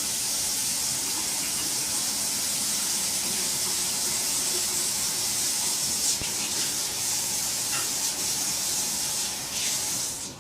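Water running steadily from the tap into a kitchen sink, rinsing away the cleaner after scrubbing. It stops abruptly near the end.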